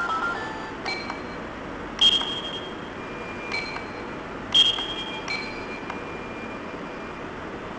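Short high electronic beeps from a novelty apple-shaped digital talking alarm clock as its buttons are pressed, five in all at irregular spacing. The second and fourth are the loudest, and each starts with a small click.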